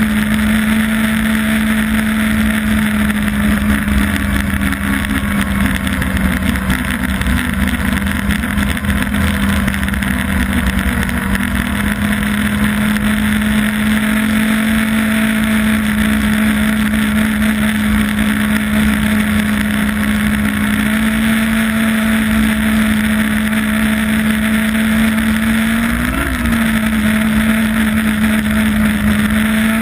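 Yamaha Apex snowmobile's four-stroke four-cylinder engine running steadily at trail cruising speed, heard from the rider's seat. The engine note holds nearly level, rising a little a couple of times, with a quick blip up and back down in revs near the end.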